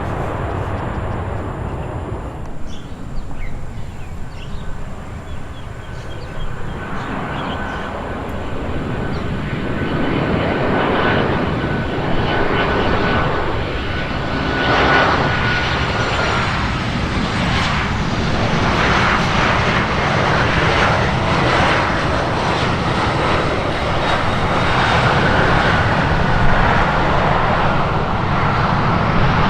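Jet airliner's engines passing: a continuous loud roar with a thin high whine that drops in pitch about halfway through, the roar building again toward the end.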